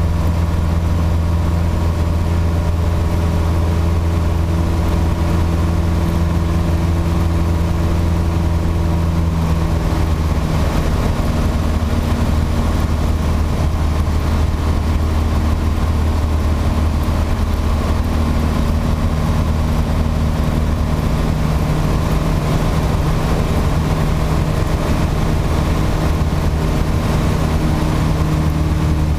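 Piper PA-28-140 Cherokee's four-cylinder Lycoming engine and propeller running steadily in flight, heard inside the cockpit. The pitch shifts slightly about ten seconds in.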